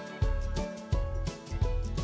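Background music with a steady beat, a stroke about every 0.7 seconds under sustained melodic notes.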